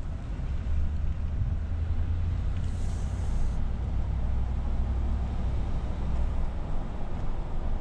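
Wind buffeting the microphone: a steady low rumble, with a brief hiss about three seconds in.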